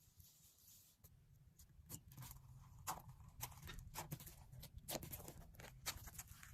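Slime being played with by hand: faint, irregular small clicks and pops that begin about two seconds in.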